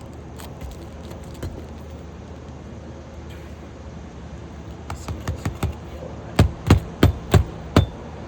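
Hammer driving roofing nails into a replacement asphalt shingle: a few light taps about five seconds in, then five hard blows about a third of a second apart.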